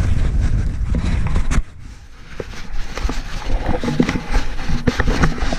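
Wind buffeting a GoPro's microphone, cutting away sharply about a second and a half in, then rustling, scraping and small knocks of the covered camera being handled.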